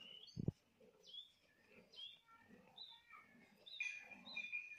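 Faint chirping of small birds, short high calls repeating throughout, with a louder, longer two-note call near the end. A single low thump about half a second in is the loudest sound.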